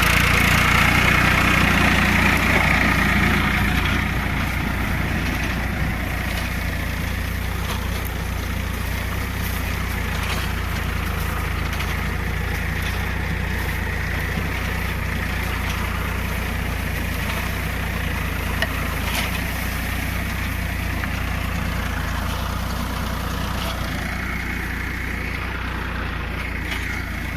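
Tractor engine running steadily while pulling a deep plough, a little louder for the first few seconds before settling to an even level.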